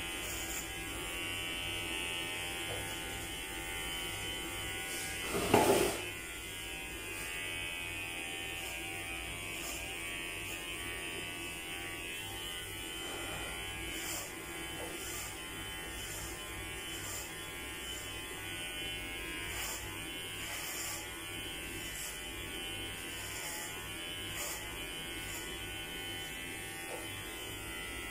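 Electric hair clipper with a number 4 guard buzzing steadily as it cuts through hair. A brief louder noise comes about five and a half seconds in.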